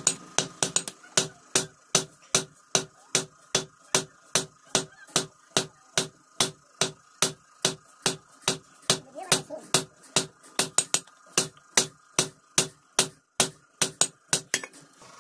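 Hand hammer striking a hot steel knife blade on a railway-rail anvil: a steady run of ringing blows, about two to three a second, with a short pause near the end before a few more strikes.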